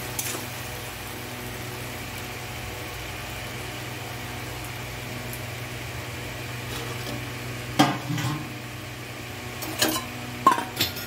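Mushroom and potato curry sizzling in a steel kadai on a gas stove, a steady hiss over a low hum. Metal ladle clinks against the pan just after the start, louder about eight seconds in, and a few times near the end.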